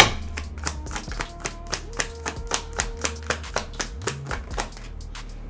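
A tarot deck being shuffled by hand: a quick, even run of card clicks, about four a second.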